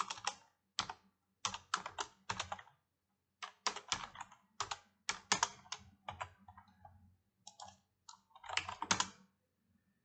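Typing on a computer keyboard: irregular runs of keystrokes with short pauses between them, over a faint steady low hum.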